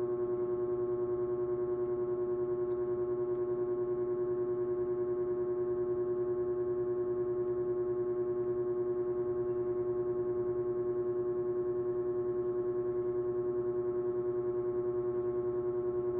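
Background music: one held drone note with many overtones, steady in pitch and pulsing slightly in loudness.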